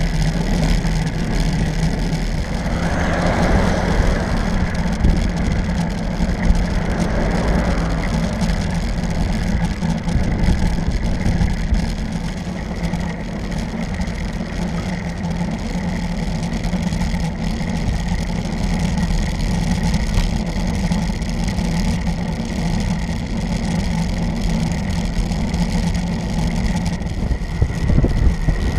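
Steady wind rumble and tyre-on-asphalt road noise picked up by a handlebar-mounted camera on a moving road bike.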